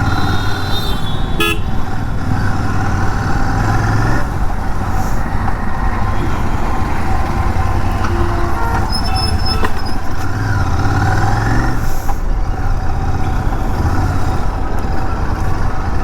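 Royal Enfield Continental GT 650 parallel-twin, still on its stock exhaust, running steadily while riding through city traffic, with road and traffic noise. Short vehicle horn toots sound near the start and again about two-thirds of the way through.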